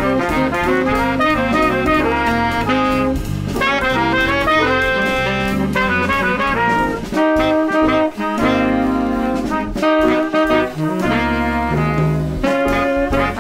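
Background jazz music led by brass instruments, playing a melody over a bass line that steps from note to note.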